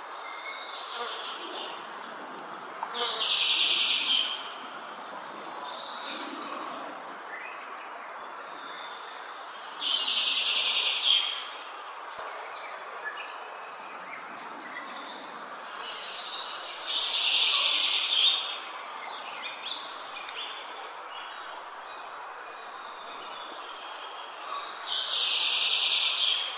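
Small birds chirping. Four loud bursts of busy chatter come about every seven seconds, with quicker runs of short, higher chirps in between, over a steady outdoor background hiss.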